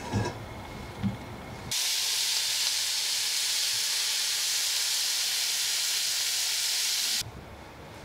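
Sliced meat and onion sizzling in a frying pan, a loud, steady hiss that starts abruptly about two seconds in and cuts off suddenly about seven seconds in. Before it, a couple of light knocks of chopsticks against a pan.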